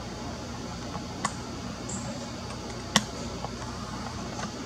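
A few sharp, short clicks over a steady background noise: one faint about a second in, the loudest about three seconds in, and another near the end.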